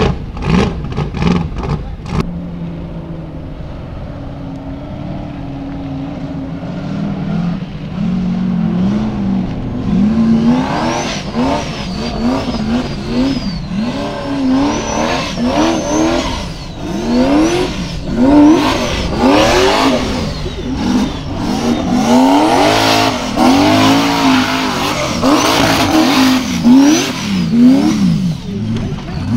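Formula Offroad hillclimb buggy's engine revving hard in repeated rises and falls, roughly one a second, as the buggy climbs a steep dirt slope. For the first several seconds the engine note is quieter and steadier.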